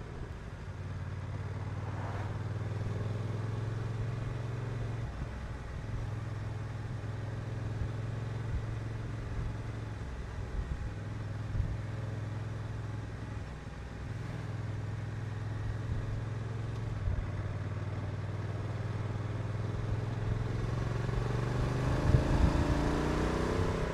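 Honda NT1100's 1084 cc parallel-twin engine running at a steady cruise, heard from the saddle with wind rush, its drone dipping briefly a few times. Near the end the revs climb as the bike accelerates.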